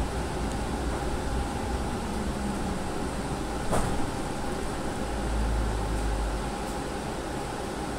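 CAF SRV-1 light rail car heard from the cab, slowing to a halt: a steady low rumble and hum, with a single short knock about halfway through.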